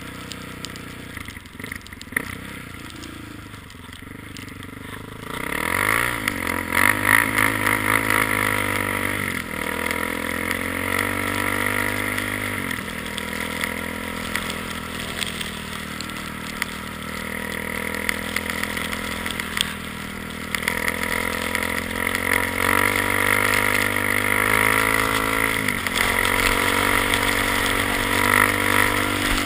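ATV engine, low for the first five seconds, then revving up and running hard. Its pitch climbs and drops back several times as the quad accelerates through the gears.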